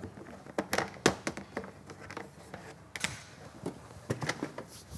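Irregular light knocks and clicks of a person moving about a workshop and handling things on a workbench, with the loudest knocks right at the start, about a second in, and about three seconds in.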